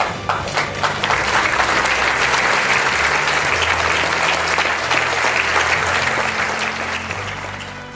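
Audience applauding: many hands clapping together, building up in the first second and dying away near the end.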